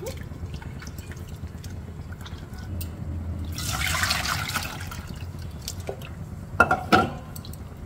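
Tamarind water being squeezed by hand in a steel bowl, with faint drips and splashes, then poured from the bowl into a steel pot in a splashing rush of about a second. Near the end come two sharp knocks.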